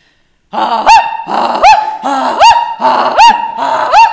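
A woman imitating a goose call with her voice alone, no caller: starting about half a second in, a loud run of five honks about three-quarters of a second apart, with a held tone between them.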